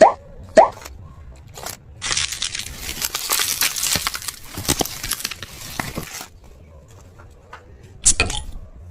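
Packaging being torn open and crinkled by hand for about four seconds, from about two seconds in, with a couple of sharp clicks before it and a knock near the end.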